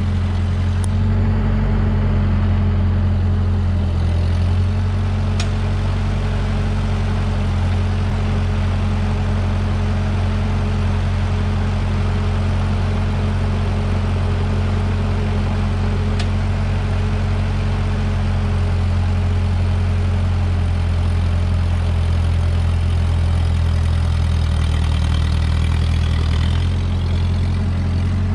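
Ford 8N tractor's four-cylinder flathead engine running steadily as the tractor backs up to a trailer. Its note shifts a little about a second in and again near the end.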